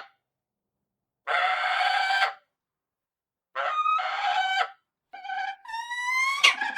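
Falcon calling: a harsh screech about a second long, then after a pause two shorter calls, then a run of quicker calls that climb in pitch near the end.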